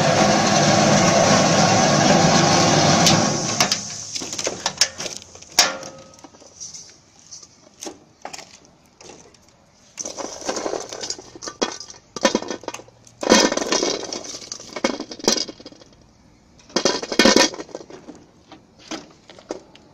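Small electric dry garlic peeling machine running with a loud steady whir that stops about three and a half seconds in. After it, peeled garlic cloves click and rattle against a stainless steel bowl in short bursts as hands stir and scoop them.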